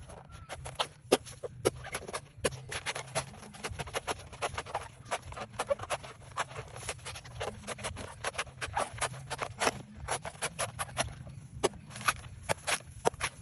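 A knife chopping and peeling a coconut: many sharp, irregular strikes, several a second, with scraping and tearing of the husk between them.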